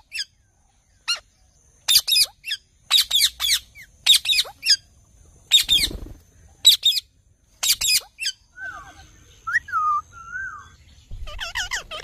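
Rose-ringed parakeets calling: short, sharp screeches in quick bursts about once a second. A few lower, quieter whistled glides come in the middle, and a fast run of calls comes near the end.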